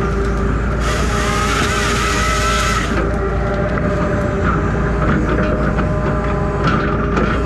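Engine of a crane-mounted grapple saw running steadily under load, with its saw head cutting through a tree section for about two seconds near the start, a high wavering whine over the engine.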